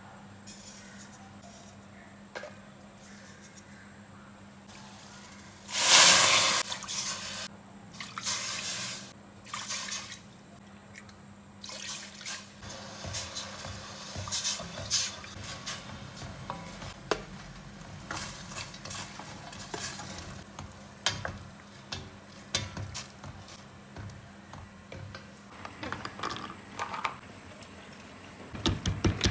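Liquid poured into an empty stainless steel pot about six seconds in, then a wooden spoon stirring it as it bubbles, with many light clicks and scrapes over a steady low hum.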